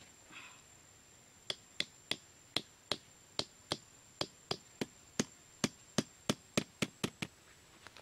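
A small bamboo peg being driven into the ground with a large knife, staking down a bamboo cage trap: about eighteen sharp knocks of metal on bamboo, roughly three a second, coming closer together near the end.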